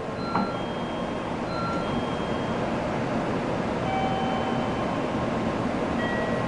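N700-series Shinkansen standing at the platform about to depart. A car door thuds shut about half a second in, then there is a steady hum of the train's equipment with faint whining tones, growing slightly louder.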